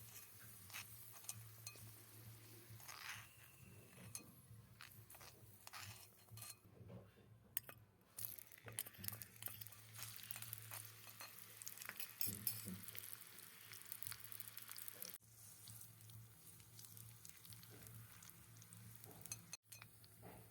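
Faint clinks and stirring of tiny cooking utensils in a miniature pot, with a light sizzle for several seconds in the middle.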